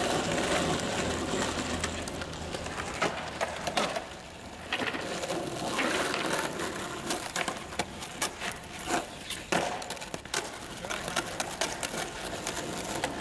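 Skateboard wheels rolling on rough asphalt, with scattered sharp clacks of the board against the ground as flatground tricks are tried. The rolling is loudest in the first few seconds and drops away briefly about four seconds in.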